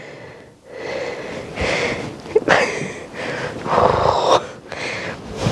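Fleece and sherpa fabric of an oversized wearable-blanket hoodie rubbing and rustling directly against a Rode Wireless Go clip-on microphone worn underneath it, in several noisy swishes as she moves.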